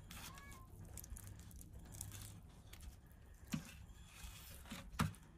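Faint tearing and handling of grilled fish as fingers pull the flesh from the bones on a metal tray, with two soft knocks, the louder one about five seconds in.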